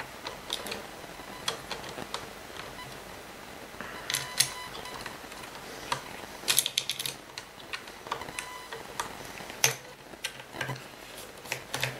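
Small scattered clicks and ticks of screws and a hand screwdriver against the plastic housing of a Kirby vacuum's base while its Torx screws are put back in, with quick clusters of ticks about four, six and a half, and ten seconds in.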